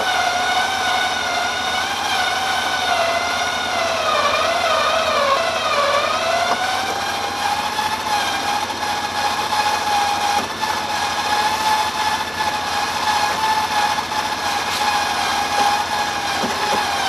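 Off-road vehicle running under load with a high, steady whine; the pitch sags and wavers about four to six seconds in, then recovers and holds.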